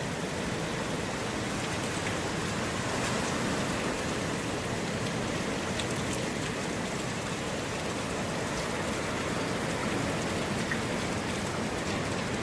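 Heavy hurricane rain and wind: a steady, even hiss with a few faint scattered ticks.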